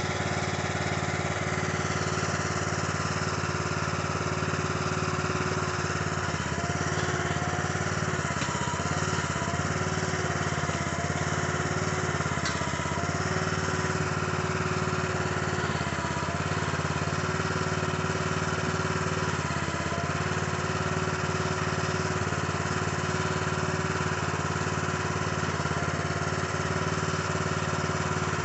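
Small gasoline engine on a towable backhoe running steadily, with a higher whine above it that dips briefly several times.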